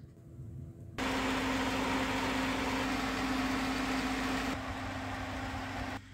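Electric fan blowing air through a car heater core, a steady hum with a rush of air. It starts abruptly about a second in and drops away just before the end.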